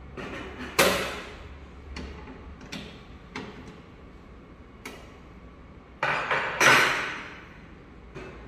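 Sharp metallic clicks and knocks of a T-handle wrench on the PV input terminals of a hybrid solar inverter as the cable connections are tightened, a handful of separate strikes. A longer, louder clatter of handled tools follows about six seconds in.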